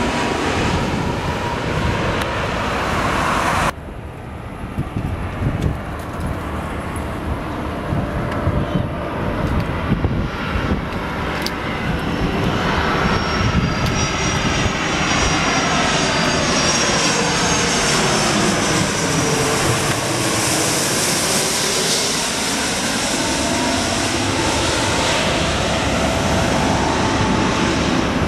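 Jet airliner engines on final approach flying low overhead: a Boeing 787-8 for the first few seconds, then, after a sudden change, an Airbus A330-200's engines growing louder over about ten seconds to a steady, loud noise with a high whine as it passes over.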